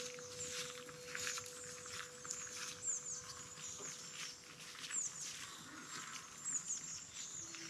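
Outdoor woodland sound: irregular soft crackling and rustling, with a few short, high, falling bird chirps and a held musical tone fading out.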